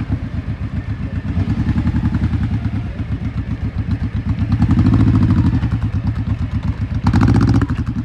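Honda Shadow V-twin cruiser engine running at low speed as the bike creeps forward at walking pace, with a steady rapid beat of firing pulses. The engine swells in level twice, once around the middle and once briefly about seven seconds in.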